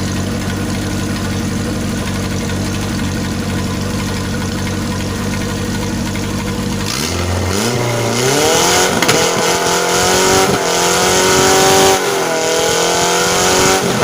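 Car engine breathing through a motorcycle exhaust, idling steadily, then revved hard about halfway through and held at high revs, wavering, with a brief dip and a second rise near the end.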